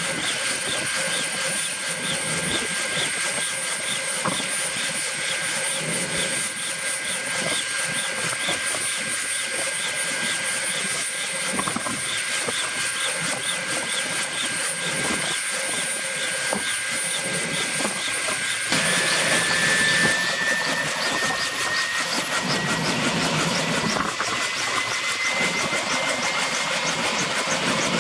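Kaman K-1200 K-MAX helicopter running on the ground during start-up, its turboshaft engine giving a steady whine over an even rhythmic beat from the intermeshing rotors. About two-thirds of the way through it gets louder and the whine starts rising steadily in pitch as the engine spools up.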